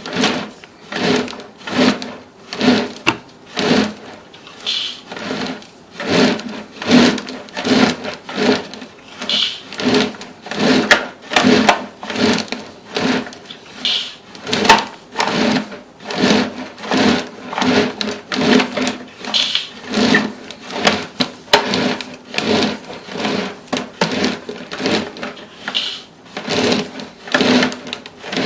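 Sewer inspection camera's push cable being pulled back onto its reel, a rhythmic rattling pulse about three times every two seconds.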